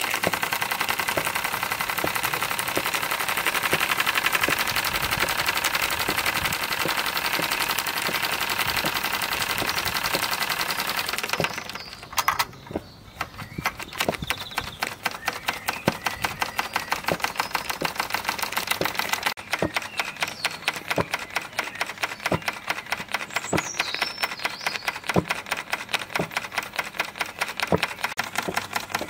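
Wilesco D20 toy steam engine running fast, its exhaust beating in a rapid, even clatter. A steady steam hiss over the beats cuts off about twelve seconds in, leaving the quick beats on their own.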